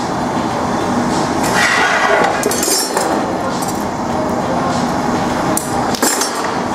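Glory hole burner and blower running with a steady rush, with a few sharp clinks of the blowpipe and metal hand tools.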